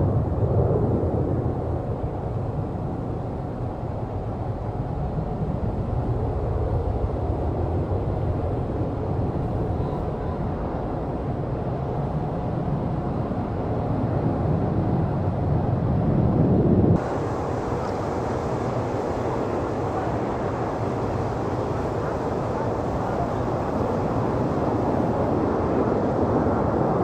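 Jet airliner engines, a steady low rumble. About two-thirds of the way through it cuts abruptly to another stretch of similar jet noise.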